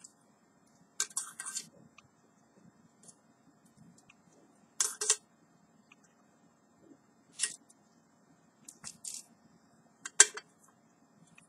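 Handling noise from a small aluminium camping pot and its folding wire handles: a handful of short, sharp clicks and clinks a few seconds apart, with a quiet stretch between them.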